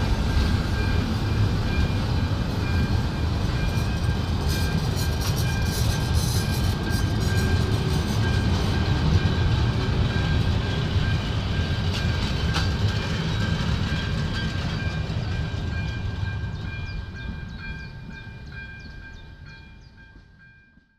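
A mixed train of freight wagons and a railcar rolling past: a steady rumble of wheels on rails with quick clicks over the rail joints and a thin steady whine above. It fades away over the last few seconds.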